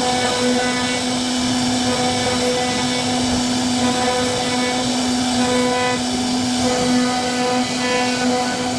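CNC router spindle running steadily as it cuts wood, a constant high-speed motor whine over a rough cutting noise.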